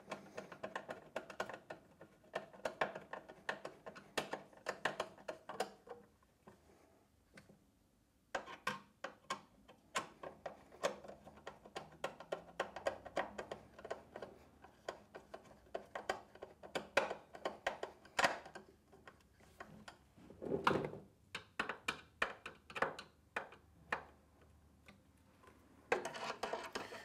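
Hand screwdriver tightening screws into the front of a rowing machine's frame, giving runs of quick clicks with a short pause about seven seconds in. A single heavier knock comes about twenty seconds in.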